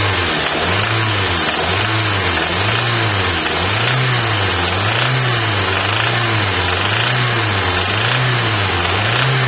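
Toyota Fielder's rebuilt engine idling warm, with the slight noise that shows only once the oil is hot and thin; the mechanic suspects a piston pin or connecting rod. The running sound swells and fades steadily about once a second.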